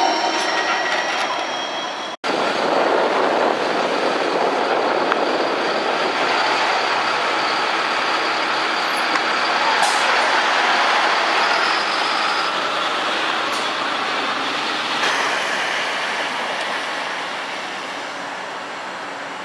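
Gold Coast light-rail tram (Bombardier Flexity 2) rolling past close by with a rising motor whine, cut off sharply about two seconds in. Then a steady noisy hum from a tram standing at a busy platform, slowly fading near the end.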